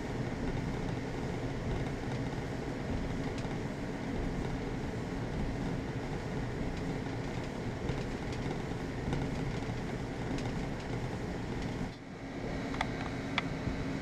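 Clothes dryer converted to a heat pump dryer running: the dryer's drum and blower with a dehumidifier compressor working, a steady mechanical hum. The sound dips for a moment near the end, and a few light clicks follow.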